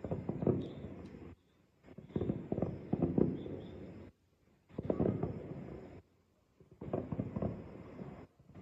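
Distant aerial fireworks going off: clusters of rapid, dull booms and crackles. About four bursts, each lasting a second or two, come with short silences between them.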